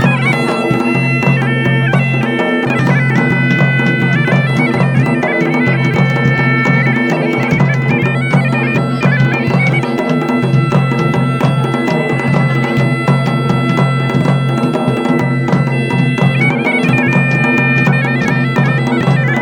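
Bagpipe music: a melody played over steady, unbroken drones, with drum beats underneath.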